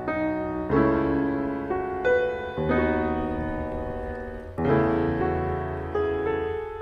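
Slow background piano music: soft chords struck about every one to two seconds, each left to ring and fade.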